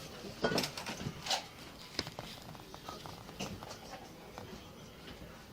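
A scatter of short knocks and clicks, the loudest two about half a second and a second in, with light rustle and patter of movement.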